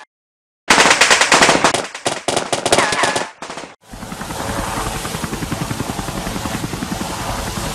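Rapid automatic gunfire in dense bursts for about three seconds after a brief silence, then, about halfway through, a helicopter's rotors chopping steadily.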